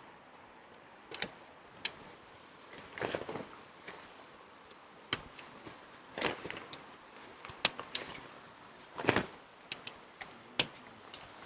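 Small hard objects being handled: scattered sharp clicks and clinks at irregular intervals, with short rustles about three, six and nine seconds in.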